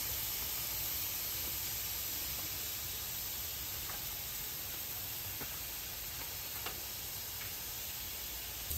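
Pork back ribs sizzling on a hot portable gas grill: a steady hiss with a few faint pops.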